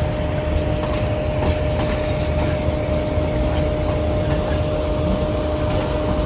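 Diesel locomotive of a train standing at the platform, running with a steady low rumble and a steady whine.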